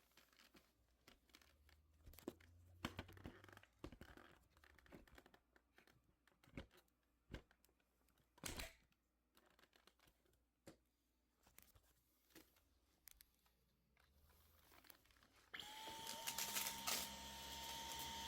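A series of scattered clicks, knocks and rustles from handling, then, a few seconds before the end, a vacuum cleaner motor switches on and runs with a steady high whine.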